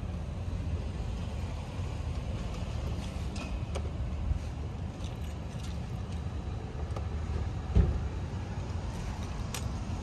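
Keys clinking and small metal clicks as a key is worked in a door's lock cylinder, with a dull knock about eight seconds in. Under it runs a steady low rumble.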